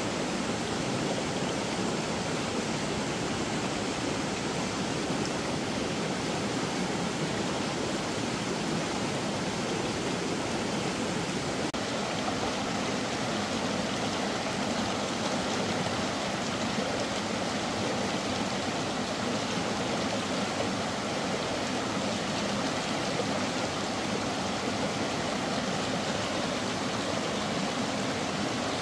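Running water: a steady, even rush of flowing stream water. The sound shifts slightly about twelve seconds in.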